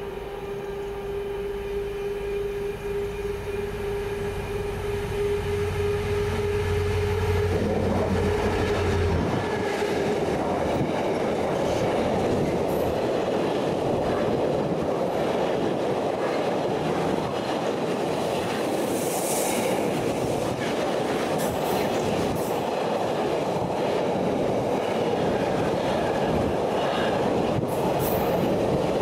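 Class 66 diesel locomotive's two-stroke EMD V12 engine drones steadily as it approaches, louder as it nears. After about eight seconds it gives way to the steady rolling noise of the loaded container wagons passing close by, with scattered clicks from wheels over the rail joints.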